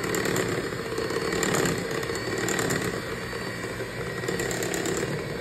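Electric hand mixer running steadily, its beaters churning thick brownie batter.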